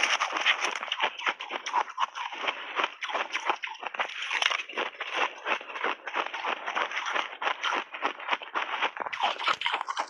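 Close-miked crunching of ice chunks coated in milk powder and berry pieces being chewed, a dense run of fast, irregular crunches.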